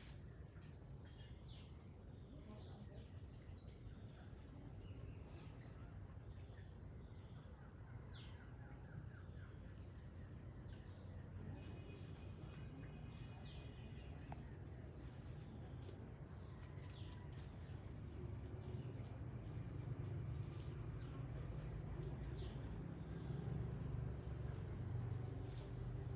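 Insects droning steadily at one high pitch, with a few short chirps over them. A low rumble grows louder in the second half.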